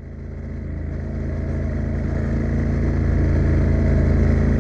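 Motorcycle engine running at a steady speed, fading in from silence.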